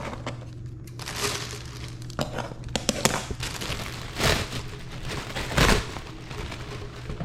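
Plastic wrapping crinkling and rustling as chair parts are handled, with a few light clicks and two louder dull thumps in the second half.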